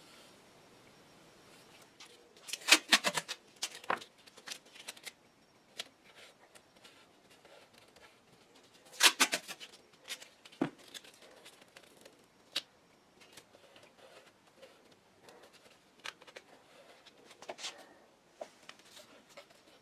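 Sharp clicks, scrapes and rattles from handling a gallon can of epoxy primer: a stir stick against the metal can and a plastic pour spout being fitted onto its rim. The loudest clusters of clicks come about three seconds and nine seconds in, with single clicks scattered after.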